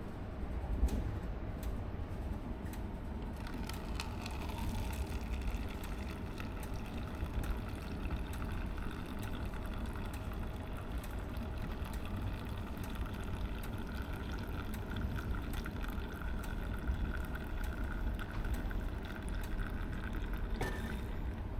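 Liquid filling a cup, rising slowly in pitch as the cup fills and stopping near the end, over the steady low rumble of the moving train.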